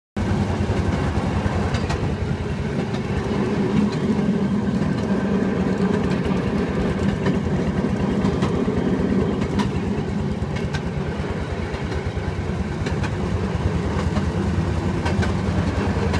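Railroad speeder (St. Louis Southwestern M19 motorcar) running steadily along the rails, its small engine putting out a fast, even pulsing, with a few sharp clicks from the track. The sound cuts in suddenly at the start.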